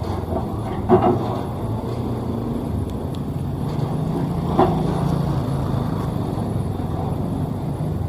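Sakai asphalt paver's diesel engine running steadily as the machine travels, with two short knocks, one about a second in and one about halfway through.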